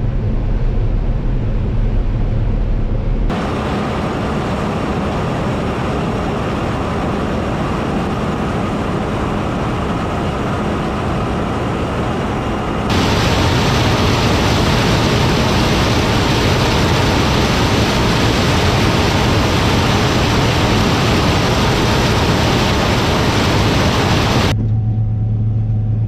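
John Deere 9670 combine harvesting corn with a 12-row corn head: a steady drone of engine and threshing machinery. It changes abruptly to a louder, hissier rushing of stalks feeding through the header about halfway through, then drops back to the lower cab hum near the end.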